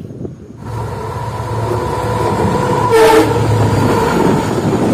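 Train rumbling along the track while a train horn sounds a long steady note for about three seconds, with a short sharper horn blast about three seconds in.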